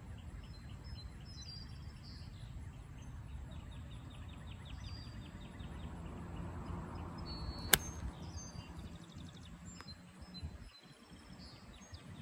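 A single sharp crack of a golf club striking a Titleist Pro V1 golf ball on a tee shot, a little under two-thirds of the way through. Steady, rhythmic chirping runs in the background.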